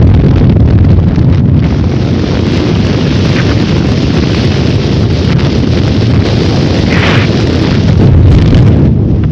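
Storm wind buffeting the microphone: loud, deep wind noise that holds steady, with a brief higher hiss about seven seconds in.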